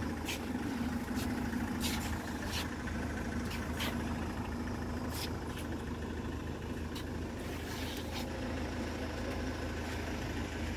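Car engine idling steadily with a low, even hum, and a few faint clicks and ticks over it.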